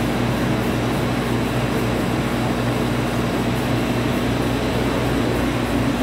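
Portable air conditioner running steadily: a constant hum with an even rush of air.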